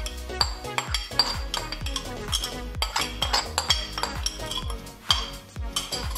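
A metal spoon scraping and clinking against a bowl and an aluminium pressure cooker as paste and salt are spooned in. Background music with a steady beat plays throughout.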